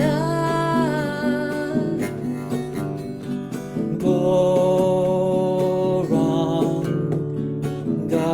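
Kirtan devotional chanting with instrumental accompaniment: long held sung notes over a steady low drone.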